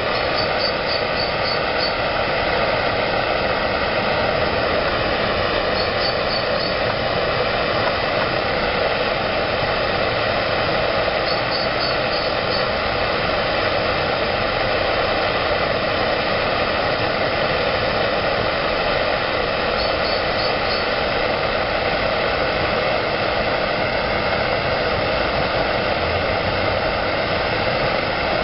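Handheld gas blowtorch on a disposable gas canister, burning with a steady, unbroken hiss.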